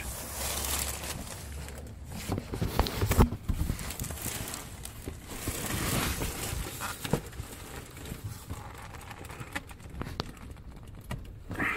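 Rustling and scattered clicks and knocks of a gloved hand gripping and twisting a stuck spin-on oil filter under a car, with the phone camera being jostled close by. The filter does not come loose by hand.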